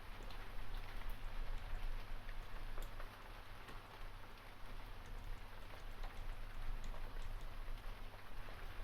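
Steady rain, with scattered sharp keyboard key clicks over it at an uneven pace.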